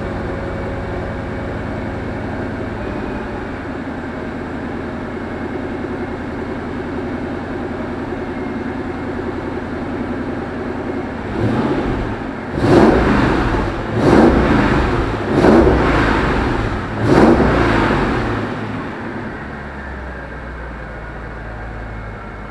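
Mercedes E55 AMG Kompressor's supercharged 5.4-litre V8, with a Kleemann K4 upgrade, idling steadily. About eleven seconds in it is blipped: a smaller rev, then four sharp revs each rising and falling back, about a second and a half apart, before it settles back to idle.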